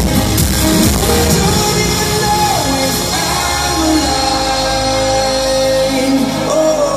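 Trance track played loud over an arena sound system during a live DJ set. The drum beat falls away about a second in, leaving a sung vocal over held chords.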